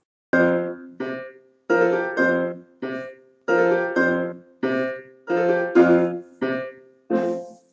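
Instrumental background music on a piano-like keyboard: a slow run of about a dozen struck chords, each ringing and dying away before the next.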